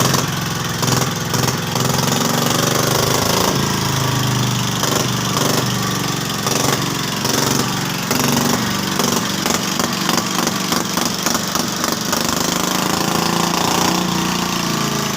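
Single-cylinder "Peter" diesel engine running steadily with a rapid, even firing beat, after a mechanic's repair.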